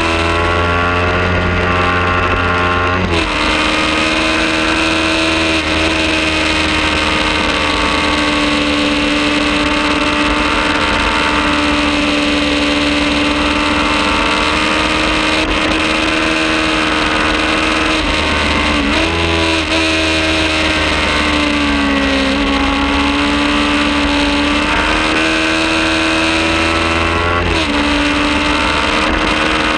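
Kawasaki Ninja 400's parallel-twin engine running hard at high revs, with wind noise rushing over the microphone. The engine note holds fairly steady for long stretches and jumps abruptly in pitch a few times at gear changes: about three seconds in, around the middle and near the end.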